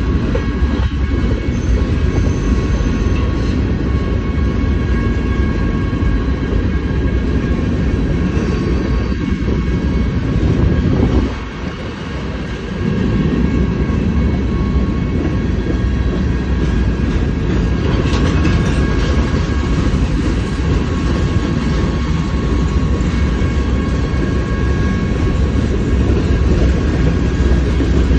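Freight train of covered hopper cars rolling steadily past, a continuous rumble of wheels on rail. It goes briefly quieter about eleven seconds in.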